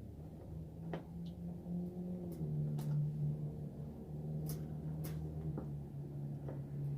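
Scattered sharp clicks and taps from handling and fitting a front turn signal lamp assembly into a car's bumper, over a steady low hum.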